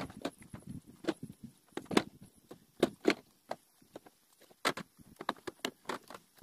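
A string of irregular short knocks and clatters, a few a second, loudest about two seconds in and again near the five-second mark.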